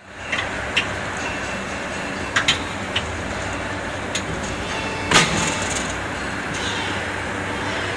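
Vertical rotary-table injection moulding machine running with a steady hum. There are a few sharp metallic clicks in the first three seconds, then a loud clunk about five seconds in as the upper platen comes down and the mould closes.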